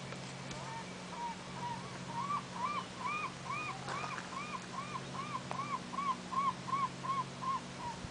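A gull calling a long series of about twenty short arched notes, about three a second, building up in strength and then tailing off toward the end.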